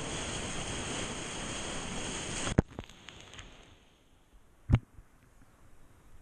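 Whitewater rapids rushing loudly around a kayak, heard from a helmet camera. The rush cuts off suddenly at a click about two and a half seconds in. Only faint noise follows, broken by a single thump about a second before the end.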